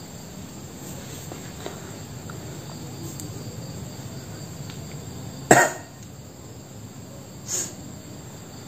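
Crickets chirping steadily, with a person's short cough a little past the middle and a fainter one near the end.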